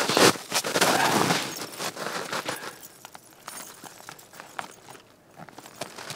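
Footsteps crunching on an icy, frozen trail: a dense run of sharp crunches and clicks for the first couple of seconds, then sparser, lighter steps.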